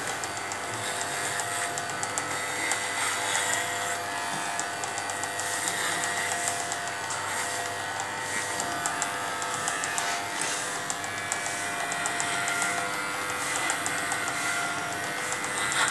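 Cordless electric pet clipper running steadily with a constant buzz as it shaves through a St. Bernard's thick coat.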